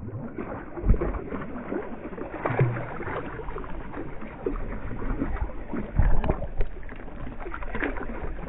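Irregular splashing and knocking of water, with a low rumble underneath.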